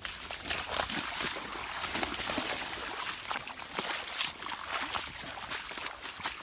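Irregular splashing and sloshing of water, thick with short crackling, rustling sounds.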